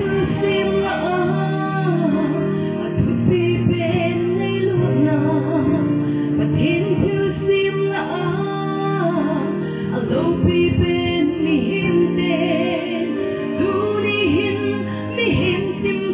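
A woman singing solo into a handheld microphone over held backing chords.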